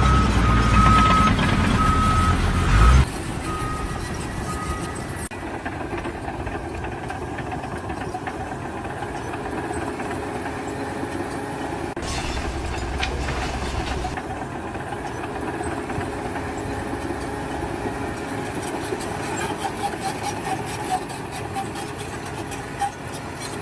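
Heavy construction machinery running. For the first few seconds a loud engine rumbles under a steadily repeating reversing alarm. After that a quieter, steady machine noise runs on, with a louder burst around the middle.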